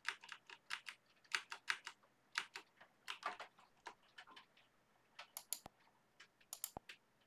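Typing on a computer keyboard: quick runs of keystrokes with short pauses between them, thinning out to a few scattered clicks in the second half.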